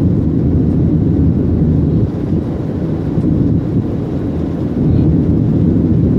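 Steady low rumble of a jet airliner's engines and rushing air, heard inside the cabin during the climb after takeoff.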